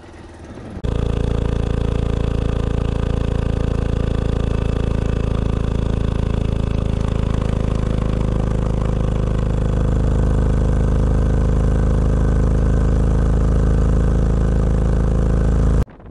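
Yamaha Serow 250's air-cooled single-cylinder engine running steadily under way, loud and close. It starts abruptly about a second in, gets a little louder around ten seconds in, and cuts off abruptly near the end.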